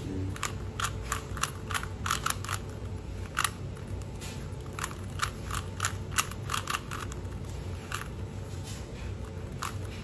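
Plastic Rubik's cube being turned quickly, its layers clicking in irregular runs of several clicks a second, over a steady low hum.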